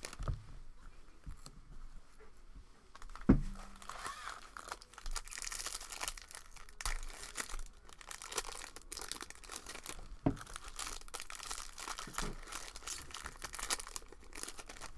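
Foil wrappers of 2021 Bowman Draft baseball card packs crinkling and tearing as packs are ripped open by hand. There is a dull thump about three seconds in, the loudest sound, and another around ten seconds in.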